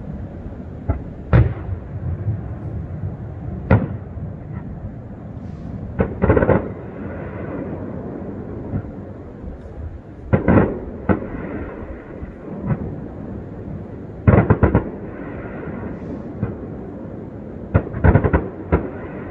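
Aerial fireworks shells bursting across the lake: a series of sharp bangs a few seconds apart, several coming in quick clusters of two to four.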